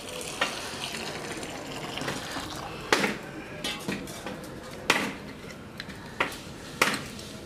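The last of a pour of hot water into a clay pot of cut green figs, then a steady hiss broken by about six sharp clinks and knocks of pots and utensils.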